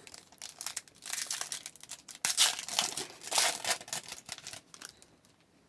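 Trading card pack wrapper being crinkled and torn open, a dense crackling that is loudest in the middle and stops about a second before the end.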